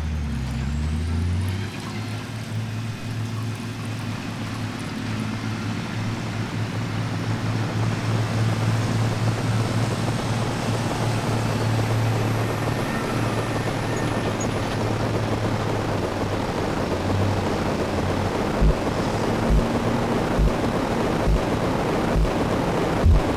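A steady rushing noise like wind or surf, with a low hum under it for the first half. In the last few seconds a soft low thud repeats at an even pace, a little under once a second.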